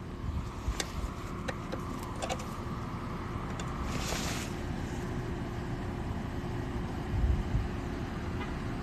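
Steady rumble of road traffic, with a few light clicks early on and a short hiss about four seconds in.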